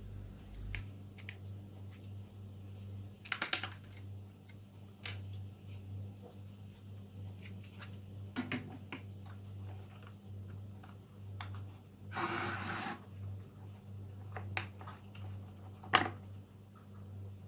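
Scattered clicks and knocks of vacuum cleaner parts being handled during a restoration, with a short rattling burst about three-quarters of the way in, over a steady low hum.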